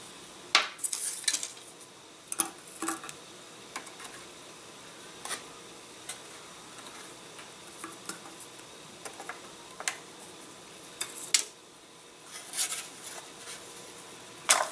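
Scattered light clicks, taps and clinks of hand work on a workbench: small balsa and plywood parts, a glue bottle and tools being handled and set down.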